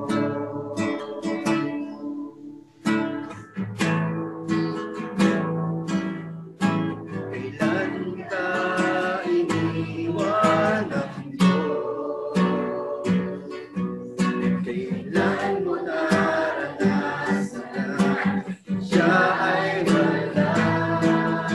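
Acoustic guitar strumming chords to accompany a Tagalog worship song, with a voice singing along.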